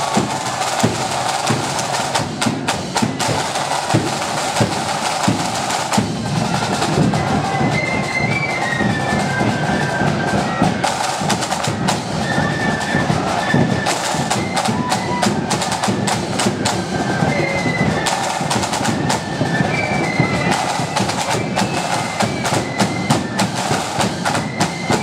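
A marching flute band playing. Snare drums rattle and a bass drum beats, and from about seven seconds in, flutes play a melody over them.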